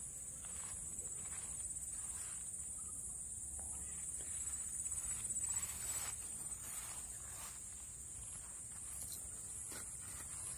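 Steady high-pitched insect drone, with faint footsteps through grass and brush.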